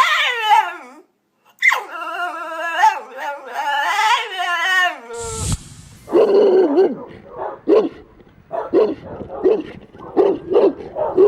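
A French Bulldog howls in long, wavering, high-pitched yowls for about five seconds. After a brief break, a Presa Canario starts barking in a run of short, deep barks, about two a second.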